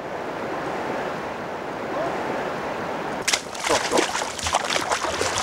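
Steady rush of river water, joined from about three seconds in by irregular rustling and knocking noises with faint fragments of voice.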